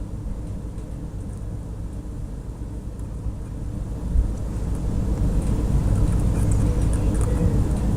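Electric soldering gun humming steadily while its tip heats a twisted wire joint, getting louder about four seconds in.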